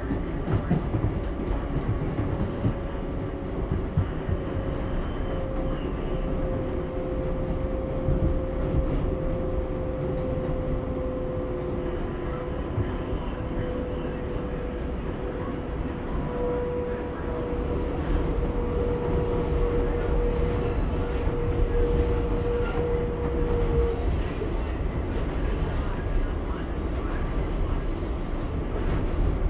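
R188 subway car with Bombardier MITRAC propulsion running on the rails, heard from inside the car: a steady low rumble and wheel clatter, with a propulsion whine that slowly falls in pitch and stops about 24 seconds in.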